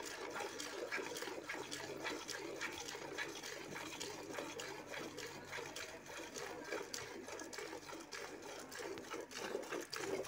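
Cow being milked by hand: milk squirting from the teats into a metal pail in a quick, rhythmic run of spurts.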